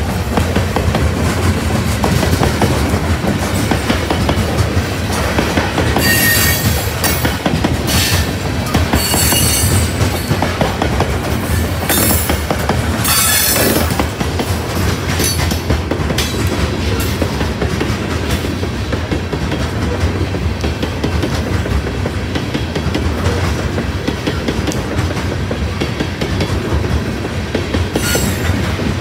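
Loaded coal hopper cars of a freight train rolling past close by: a steady rumble with the clickety-clack of wheels over the rail joints. Several shrill bursts of wheel squeal come between about six and fourteen seconds in, and another near the end.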